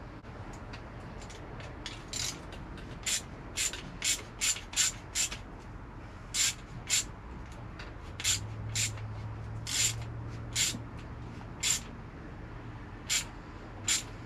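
Ratcheting wrench being worked back and forth to tighten a nut on a truck's gear-shift lever: a series of short raspy ratchet strokes, about fifteen in all, coming in irregular clusters.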